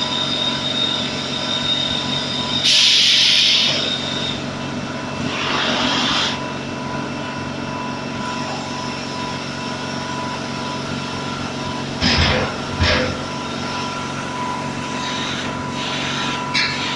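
Air compressor running steadily with a droning hum, with two short bursts of hissing air early on and two sharp knocks about twelve seconds in.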